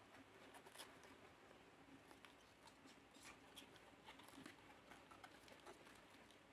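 Near silence: room tone with a few faint, scattered ticks and rustles.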